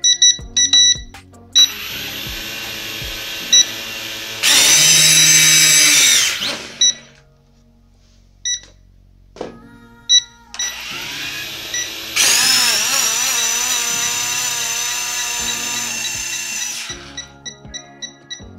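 Eachine E58 toy drone's small geared motors spinning up twice without lifting off. Each run is a high whine that jumps louder at full throttle, for about two seconds the first time and about five the second, then winds down and cuts. The strange sound comes from the gears losing contact because a part was left without its screws. Sharp clicks come before the first run.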